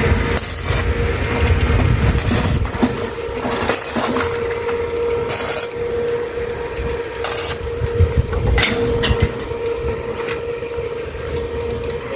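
Electric arc welding: irregular crackling bursts of the arc over a steady hum.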